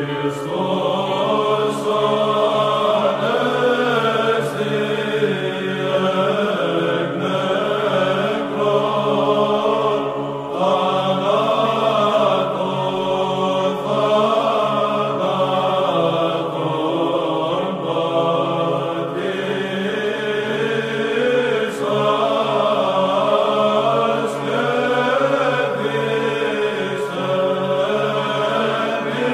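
A choir singing Orthodox church chant, slow melodic lines held over a low steady drone note.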